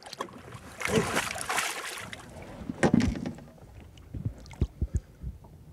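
Water splashing at the side of a boat as a musky is released by hand from a landing net, the loudest splash about three seconds in. A few short dull knocks follow near the end.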